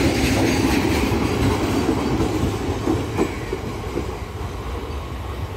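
Steel wheels of a freight train's last wagons and brake van rumbling and clacking over the rail joints as the train passes and draws away, fading steadily, with one sharper clack about three seconds in.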